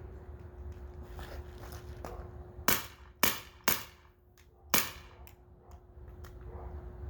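Beretta M9A3 CO2 blowback BB pistol firing single shots: four sharp cracks within about two seconds near the middle, the third one softer.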